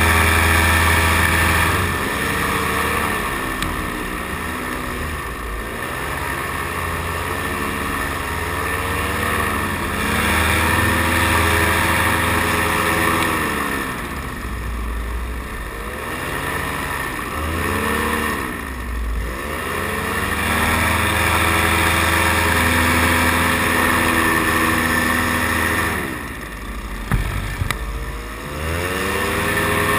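Paramotor engine and propeller running, the throttle worked up and down so the pitch rises and falls every few seconds. The engine drops back briefly near the end, with a few clicks, and then picks up again.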